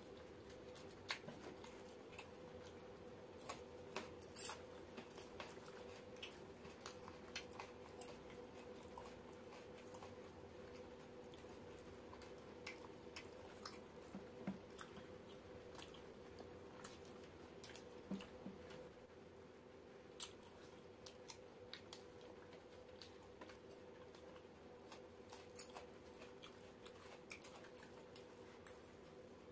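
Faint eating sounds of two people eating roti and chicken curry by hand: chewing, with scattered short clicks and taps as fingers tear roti and pick at curry on steel plates. A steady low hum runs underneath.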